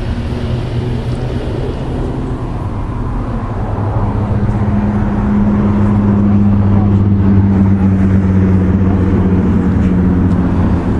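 A motor vehicle's engine running with a steady low hum, growing louder about four seconds in and then holding.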